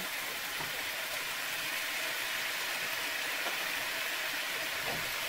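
Chicken pieces in curry spices frying in a pan, a steady, even sizzle.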